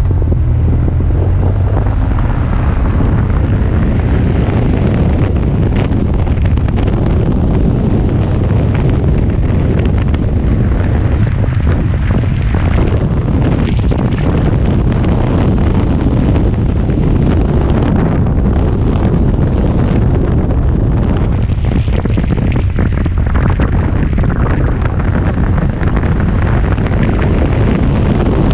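Heavy wind noise buffeting the microphone on a moving motorcycle, over the steady running of a BMW R 1200 GS's boxer-twin engine at road speed.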